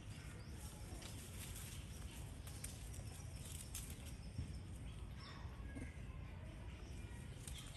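Quiet outdoor ambience: a steady low rumble with scattered light clicks and rustles, and a few faint short high calls about two-thirds of the way through.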